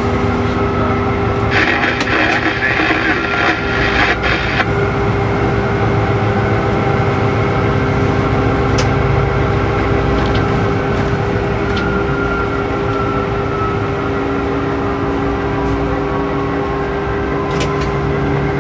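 Locomotive running, heard from the cab as a steady rumble with a constant hum. About a second and a half in, a loud hiss cuts in and lasts about three seconds.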